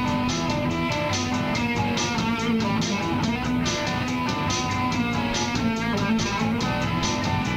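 Guitar music: strummed guitar over a plucked bass-guitar line, with an even, steady rhythm.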